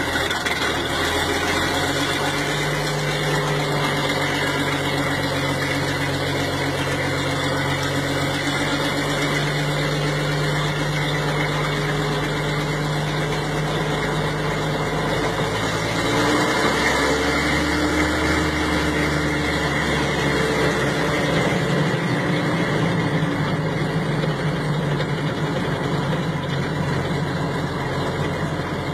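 The engine of a World War II Allis-Chalmers high-speed artillery tractor, heard from inside the cab as the tractor drives. It runs steadily and changes pitch a little past halfway through.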